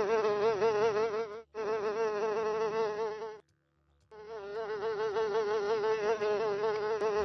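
Blowfly buzzing: a steady drone with a wavering pitch. It breaks off for an instant about a second and a half in, then stops for most of a second around the middle before starting again.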